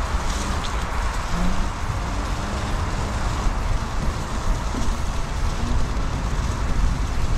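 Kingsong S22 electric unicycle being ridden over rough ground: a steady rushing noise with a strong low rumble from its tyre rolling over the dirt and wind on the rider's microphone.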